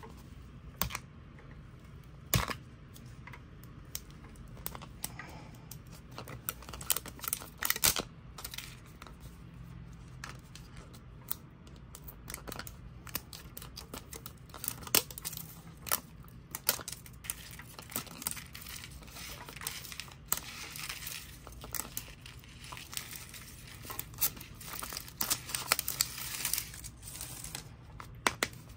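A plastic wrapper being peeled and torn off a hard plastic toy capsule ball, crinkling, with many light clicks and taps of fingernails on the plastic. A denser scratchy stretch of peeling comes about two-thirds of the way in.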